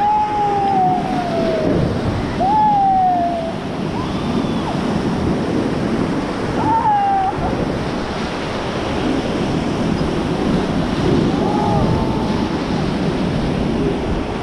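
Rushing whitewater of the Beas River, loud and steady, heard from a raft on the rapids. A few short falling shouts from the rafters are heard over it, near the start and about 2, 7 and 11 seconds in.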